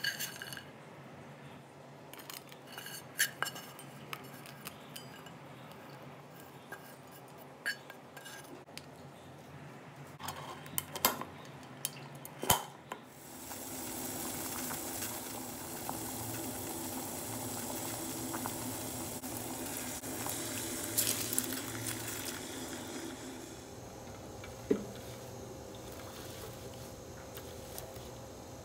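A metal spoon clinking and scraping in a steel cooking vessel with scattered sharp clinks, then, about halfway through, a steady hiss of water boiling in a pot that fades after about ten seconds. One sharp knock comes near the end.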